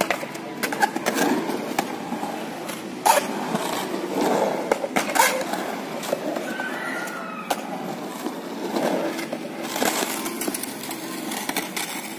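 Skateboard rolling on a mini ramp, wheels rumbling, with several sharp clacks of the board and trucks striking the ramp, the loudest about three and five seconds in.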